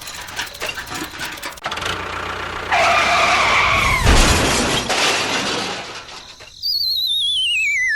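A noisy crash with a squeal held for about a second and a half, about three seconds in, then a warbling whistle sliding down in pitch near the end.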